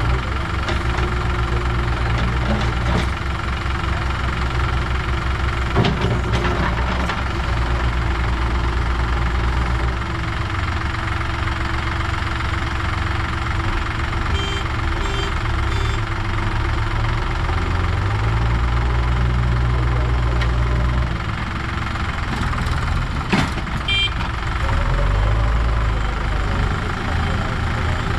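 Diesel engine of a JCB backhoe loader running as it digs and loads soil into a tractor trolley, its note shifting up and down with the work over other idling engines. A couple of sharp knocks stand out, about six and twenty-three seconds in.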